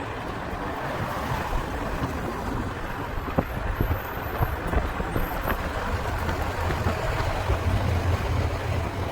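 City street traffic: a steady hum and rumble of passing cars, with a few short clicks.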